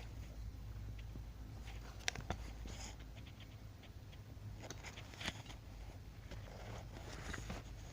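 Faint handling of an M4 bayonet and its sheath: a scatter of small clicks and rustles, the sharpest about two seconds in and again just after five seconds, over a low steady hum.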